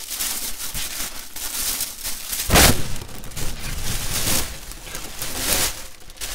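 Paper wrapping rustling and crinkling close up as a rolled poster is unwrapped by hand, with a louder crackle about two and a half seconds in.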